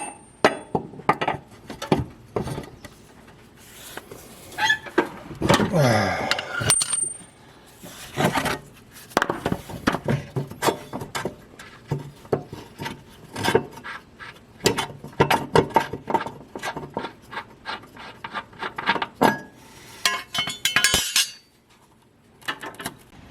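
Steel mower blades and hand tools being handled: many short metal clinks and knocks, with a longer scrape falling in pitch about six seconds in.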